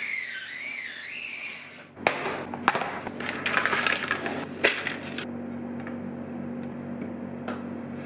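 A utility knife scrapes as it scores a sheet of acrylic along a steel ruler, with a wavering squeak. After about two seconds the protective plastic film crackles and rustles as it is peeled off the acrylic. Near the end come a few light knocks as the panel is handled on a wooden desk.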